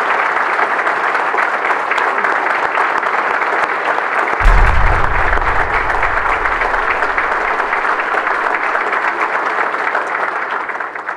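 Audience applauding steadily. About four and a half seconds in, a deep bass boom comes in and dies away over a couple of seconds, and the applause fades out at the very end.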